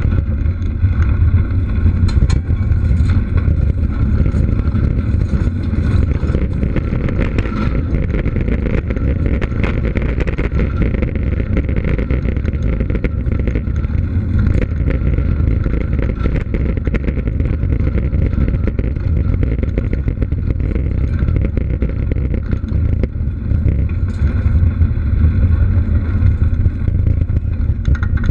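Mountain bike rolling over gravel and rough, cracked pavement, with wind buffeting the action-camera microphone: a loud, steady low rumble with many small clicks and rattles throughout.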